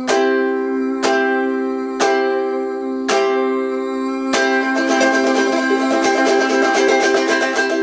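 Ukulele strumming a C chord as the closing chord of the song: five single strums about a second apart, then a fast tremolo strum from about five seconds in.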